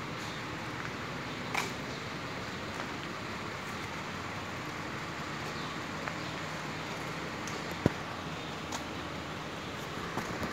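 Steady workshop background noise, a constant even rush, with a few short sharp clicks; the loudest click comes about eight seconds in.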